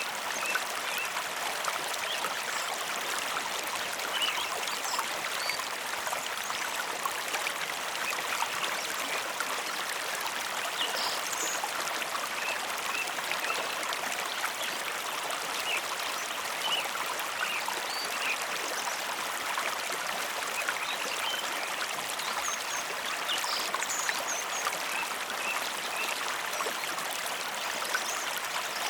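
Mountain river running steadily, an even rush of flowing water, with brief high notes scattered here and there above it.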